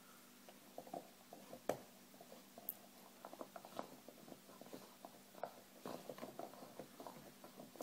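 Faint, irregular small clicks and soft taps as a baby handles a lying golden retriever's head and mouth, with a faint steady hum underneath.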